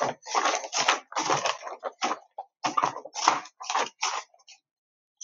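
Sheets of drawing paper being handled and shuffled, rustling and crinkling in a rapid run of short noises that stop near the end.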